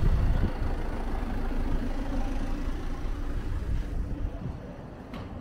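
A Citroën Relay delivery van's engine idling close by, a steady low rumble that grows fainter near the end.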